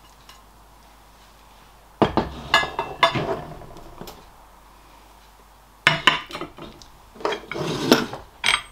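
Stoneware plates being set down and moved among other crockery on a table, clinking and clattering against each other: a short burst about two seconds in and a longer run of knocks near the end.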